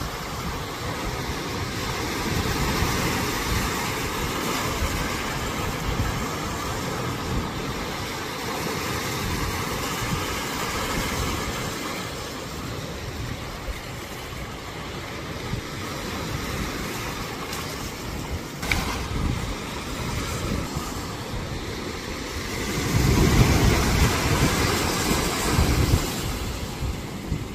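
Wind rumbling on the microphone over small waves washing in the shallows, with a louder gust of rumble near the end.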